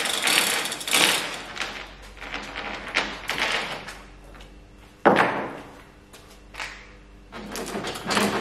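Hand chain hoist rattling and clicking as its chain is pulled, then a single sharp, loud knock about five seconds in, followed by smaller knocks and handling noises on the fibreglass hull.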